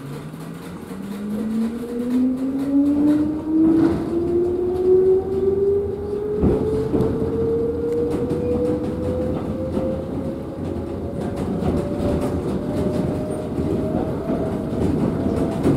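Electric train pulling away from a station, heard from inside the carriage: the traction motors' whine rises steadily in pitch as it accelerates, with the wheels knocking over rail joints.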